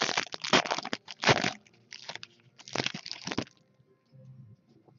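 Trading-card pack wrapper being torn open and crinkled by hand, in several crackling bursts that stop about three and a half seconds in.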